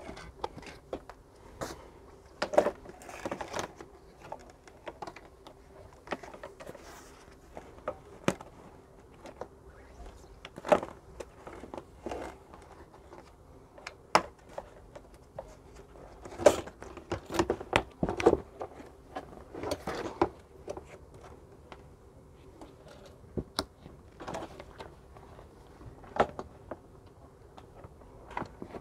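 Irregular clicks, taps and rustles of a scarifier's fabric grass-collector bag and its plastic frame being handled and clipped together, with a few louder snaps about 2.5, 16.5 and 18 seconds in.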